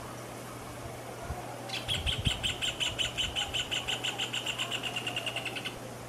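Rufous hornero singing: a rapid series of sharp, ringing notes starts about two seconds in, speeds up and fades over about four seconds.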